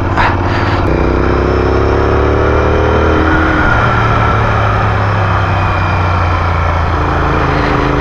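Motorcycle engine running under way, heard from the rider's camera with wind noise over it. Its note climbs gently for a couple of seconds, from about a second in, then eases off and settles.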